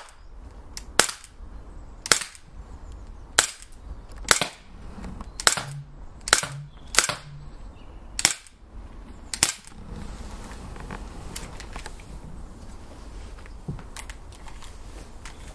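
Gamo PT85 Tactical CO2 blowback air pistol with a silencer firing about ten shots roughly a second apart, each a sharp crack. The shooting stops about nine and a half seconds in.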